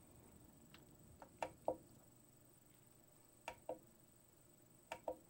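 Faint clicks from the adjustment knob of a UNI-T UTP1306 bench power supply being turned to set the current. They come mostly in pairs a fraction of a second apart, three times.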